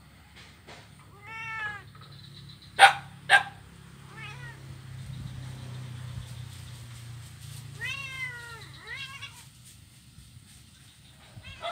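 Kitten meowing in high calls that rise and fall in pitch, about four times. Two sharp knocks close together about three seconds in are the loudest sounds.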